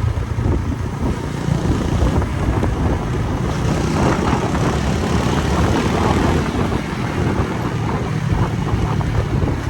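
Motorcycle riding along a road: a steady low rumble of engine and wind buffeting the microphone.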